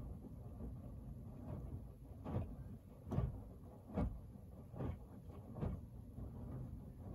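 Hoover AXI front-loading washing machine tumbling a wash load: a low churning with a thud about every 0.8 s as the laundry drops in the turning drum.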